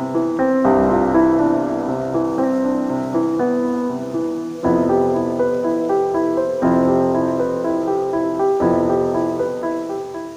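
Background piano music, with a new chord struck about every two seconds.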